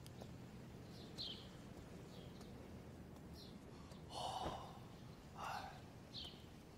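A person exhaling heavily with a breathy sigh about four seconds in, and a shorter breathy sound a second later. Faint chirps of small birds sound in the background.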